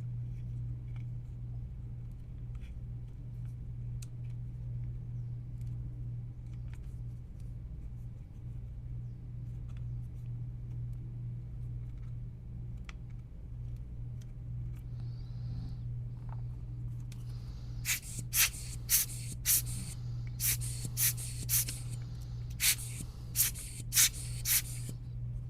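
Short, sharp scratchy strokes, about two a second, from handwork on the controller's small parts. They start about three-quarters of the way through, over a steady low electrical hum.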